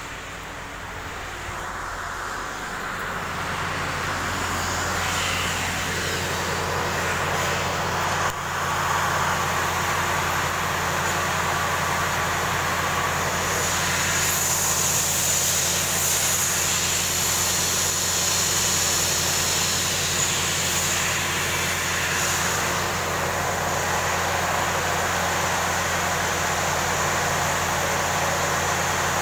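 Large diesel engine of a BELAZ mining dump truck running steadily at idle. The low drone sets in about three seconds in and grows louder over the next few seconds, then holds even. A hiss joins it about halfway through.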